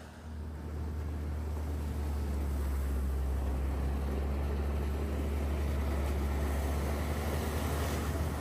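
Ski-Doo snowmobile engine running steadily under way, a deep drone that builds over the first two seconds and then holds.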